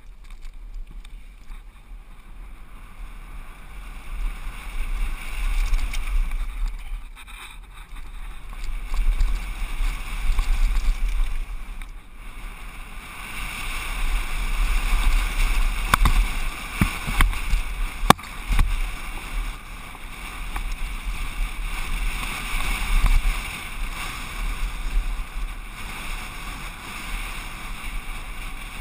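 Wind rumbling on a helmet-mounted action camera during a fast mountain-bike downhill run, mixed with tyres rolling over a dry dirt trail and the bike rattling over bumps. Sharp knocks come here and there, and the noise swells and dips with the speed.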